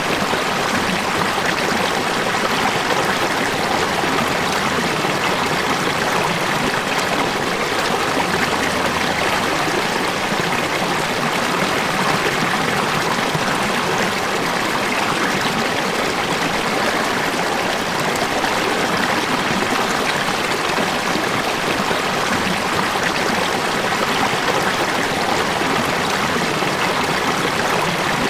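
Water falling and running in a steady, even rush, like a stream or small waterfall, with no change throughout.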